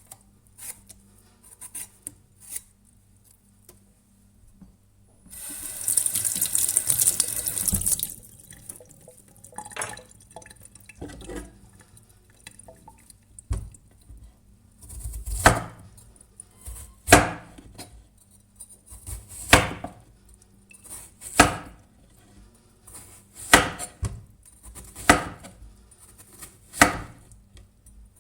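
Food prep on a persimmon: a few soft scrapes and clicks, then a tap running for about three seconds, then a knife cutting through the persimmon onto a cutting board in slow, even strokes, about one every two seconds, from about halfway through.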